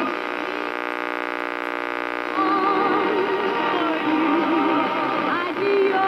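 Music playing through a 1963 Pontiac Delco 984077 AM push-button car radio. A steady held tone sounds for the first two seconds, then a singing voice with vibrato comes in.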